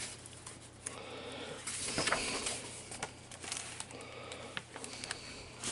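A book's pages being handled and turned: faint paper rustling with a few soft clicks.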